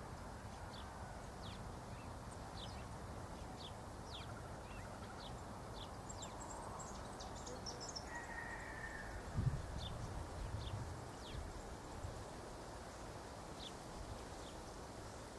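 A small bird repeating short, high, falling call notes every second or so over a steady low rumble, with a brief thump about nine and a half seconds in.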